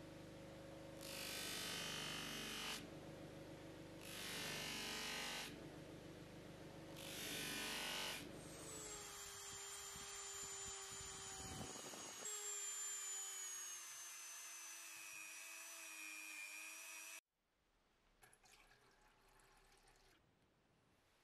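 Handheld rotary tool with a small abrasive polishing wheel whining as it polishes a brass medal, with three hissy bursts as the wheel grinds against the metal, then a steadier whine that slowly falls in pitch. It cuts off suddenly, followed by a faint trickle of water poured into an ultrasonic cleaner.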